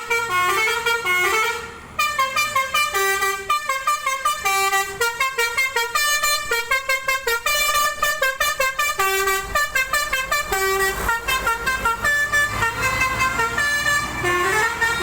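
Indonesian telolet bus horn, a multi-tone horn playing a fast tune of short, stepping notes. It dips briefly just before two seconds in, then carries on.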